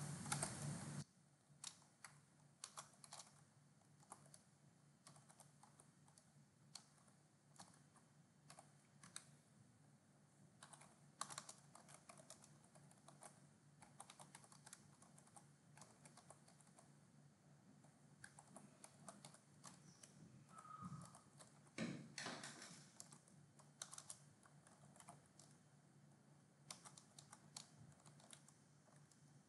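Faint typing on a computer keyboard: irregular keystrokes in short bursts with pauses between them.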